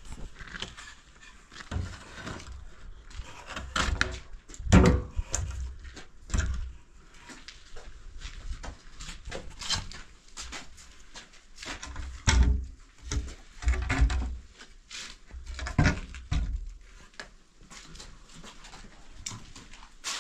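A series of irregular knocks and thumps with scraping and rustling between them, as of objects being handled and set down. The heaviest thumps come about five seconds in and again around twelve, fourteen and sixteen seconds.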